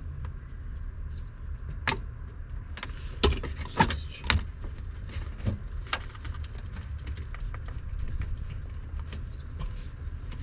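Clicks and knocks of a part being worked loose and taken off in the truck's wiring, the loudest few strikes coming between about two and four and a half seconds in, over a steady low rumble.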